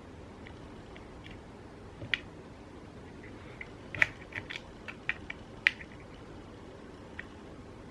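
Small sharp clicks and taps of a Phillips screwdriver and other small parts being worked inside an opened smartphone, while its tiny frame screws are being removed. The clicks come a few at a time, busiest about four to six seconds in.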